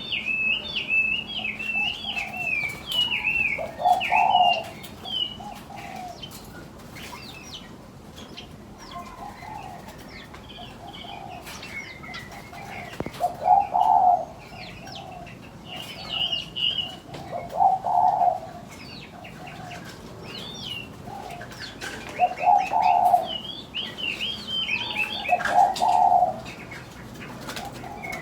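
Aviary doves cooing, a low coo every few seconds, while smaller birds chirp and twitter in quick high notes, most busily near the start and again near the end.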